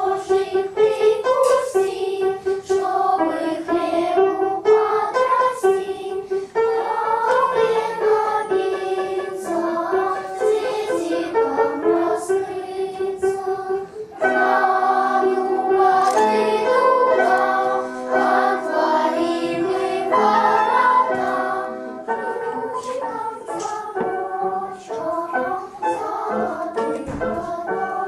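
Voices singing a rain-calling chant (a Russian folk 'zaklichka' calling the rain) as a melody of held, stepping notes. It grows fuller and louder about halfway through.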